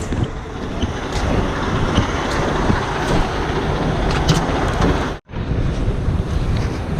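Heavy recovery truck's diesel engine running steadily, mixed with wind buffeting the microphone; the sound drops out for an instant about five seconds in.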